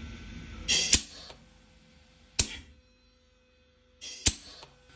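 Three sharp clicks from hands working a Serdi seat and guide machine and its dial indicator: about a second in, about two and a half seconds in, and near the end. The first comes with a short hiss just before it, and a faint steady hum runs underneath.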